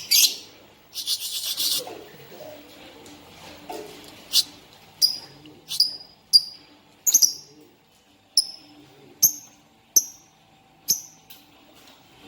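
Pet lovebird calling: a short burst of rapid chatter about a second in, then a series of about ten short, sharp chirps, each dropping quickly in pitch, spaced half a second to a second apart.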